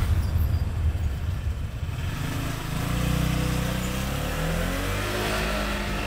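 Motor scooter engine running as the scooter pulls away, a low rumble first, then a steady engine note that comes in about two seconds in and holds.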